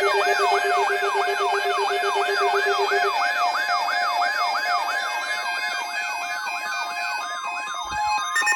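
Emergency alert attention signal: a siren-like tone sweeping up and down about two and a half times a second over a steady lower tone that stops about three seconds in. Near the end it changes to a louder buzzing tone.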